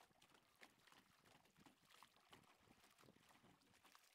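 Faint, irregular splashing of double-bladed kayak paddles dipping into river water.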